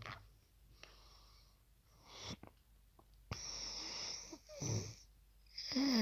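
A person snoring loudly after taking tramadol, in uneven breaths. There is a long noisy in-breath from about halfway and a short snort, then a louder snore with a wavering buzz begins near the end.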